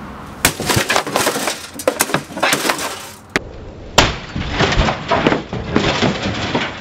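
A 6-pound sledgehammer strikes the metal chassis of a DVD/VCR combo player. There is a hit about half a second in followed by a scatter of smaller knocks and rattles. The loudest hit lands about four seconds in, knocking the player over so that it clatters down flat.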